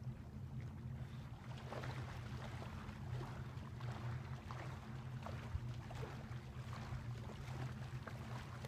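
Small waves lapping and washing on a sandy shoreline, with many small splashes, over a steady low hum.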